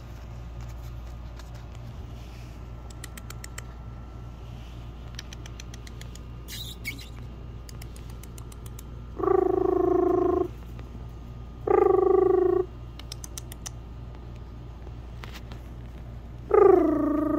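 Chihuahua puppy whining three times, each cry about a second long and held at a steady pitch; the last starts higher and slides down. Light scattered clicks and scratches come in between.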